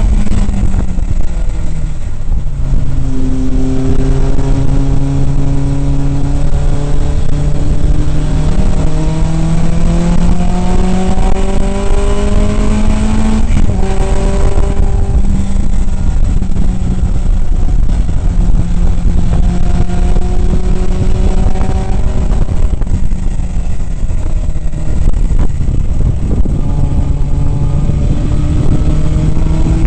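In-car sound of a 1967 Datsun 2000 roadster's 2.0-litre four-cylinder engine at racing speed. Its note climbs steadily for several seconds and then drops sharply about 13 seconds in, with further dips and climbs later on, over a constant rush of wind and road noise.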